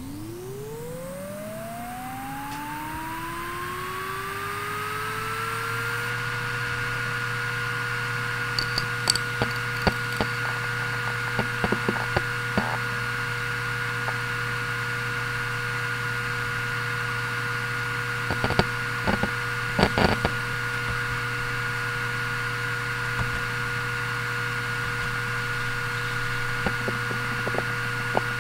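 Toshiba X300 Performance HDWR460 6TB 7200 rpm hard drive spinning up: a rising whine that levels off into a steady hum after about six seconds. Clusters of head clicks and seek chatter follow while it initialises, and quick seek ticks come near the end as the read/write benchmark begins.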